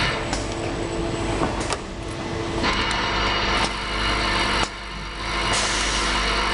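Automatic assembly machine running: a steady mechanical hum and dense noise, with sharp clicks a few times and abrupt shifts in level as the machine changes step.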